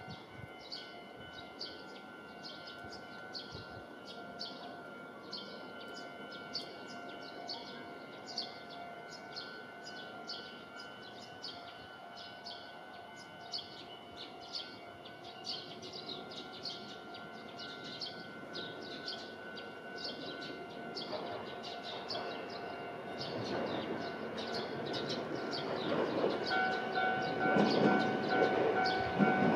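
Birds chirping over faint background hum, then the running noise of an approaching Hankai Mo161-type tram on the rails, growing steadily louder over the last several seconds. Near the end a rapidly repeating two-tone bell starts up, a level-crossing warning.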